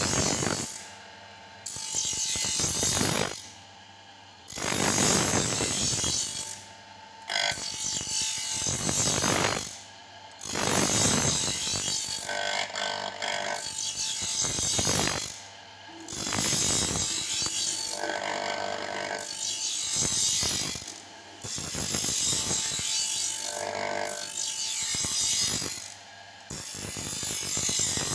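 Planer-blade grinding machine: its grinding wheel runs along a clamped planer knife, throwing sparks, with a harsh grinding hiss. The grinding comes in passes of two to five seconds, with short quieter breaks between them.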